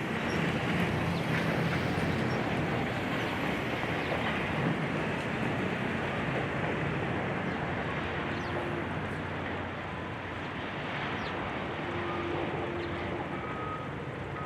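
Steady rumble of heavy diesel demolition machinery running, under a constant wash of noise with no distinct impacts.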